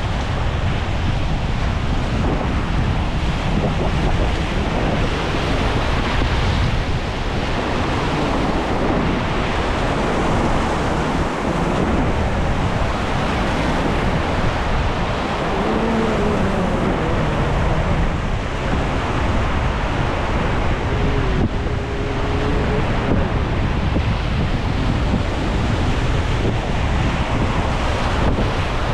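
Rushing whitewater of river rapids, a steady, loud roar of water, with wind buffeting the microphone.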